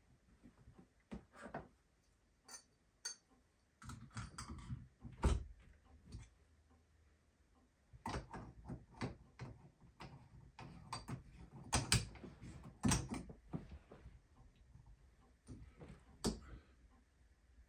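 Irregular small clicks, knocks and taps of hands fitting parts onto a shower valve in the wall, with clusters of handling noise and no steady tone.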